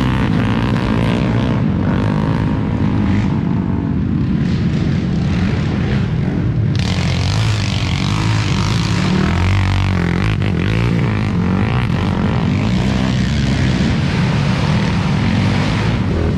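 Racing quad (ATV) engine running hard and steady, with a rougher hiss joining abruptly about seven seconds in.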